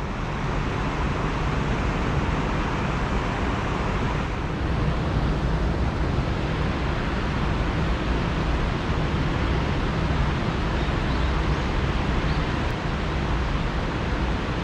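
Steady rush of river water flowing past, an even noise with no let-up.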